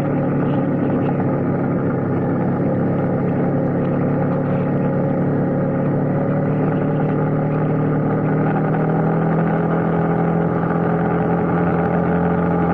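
Motorcycle engine running at a steady cruising speed while the bike is ridden, the engine note holding an even pitch and growing slightly stronger near the end.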